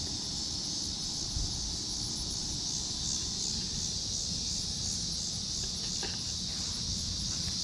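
Steady high-pitched chorus of insects, slightly pulsing, over a low rumble of wind or handling noise on the microphone.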